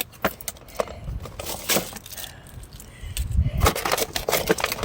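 Clatter and knocks of gear being handled and rummaged through, with a low rumble of wind buffeting the microphone in the quieter middle stretch; the clicking gets busier near the end.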